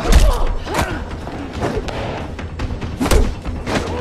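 Staged fistfight: a few heavy punch and body-blow thuds, the loudest just after the start, at about a second and near three seconds, with short grunts of effort, over a dramatic music score.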